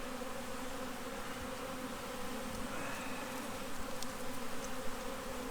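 A mass of honey bees buzzing around an open hive, a steady, even hum.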